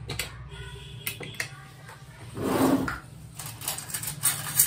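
Aluminium pressure cooker's lid being fitted and its handle worked: light metal clicks and scrapes, with a louder scrape about halfway through.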